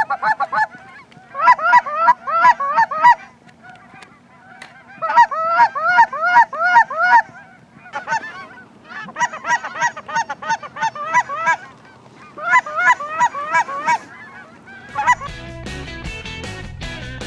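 A flock of Canada geese honking in flight overhead, in bursts of rapid overlapping honks with short lulls between. Music with guitar comes in near the end.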